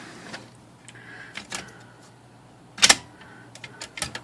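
Mechanical clicks and clacks from a Smith Corona manual typewriter as its carriage release arms are worked by hand: scattered light clicks, one sharp clack about three seconds in, then a quick run of smaller clicks near the end.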